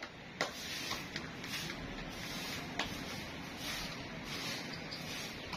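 Steady outdoor background noise, a rushing hiss, with a few sharp clicks, one about half a second in and one near three seconds.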